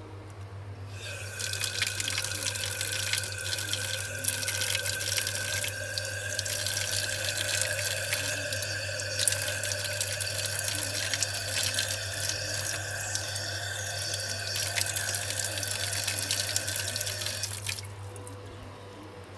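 Water running from a tube onto a cellulose sponge as it is wetted, splashing down into a plastic basin, with a faint steady whistle in the flow. The water starts about a second in and stops shortly before the end.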